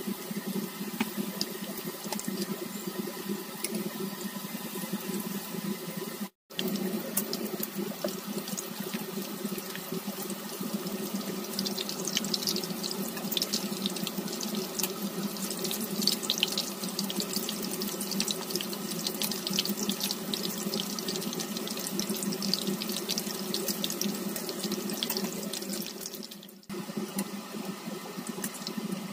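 Batter-coated chicken pieces frying in hot oil in a wok, a steady sizzle with fine crackling that thickens in the middle stretch, over a steady low hum. The sound drops out briefly about six seconds in.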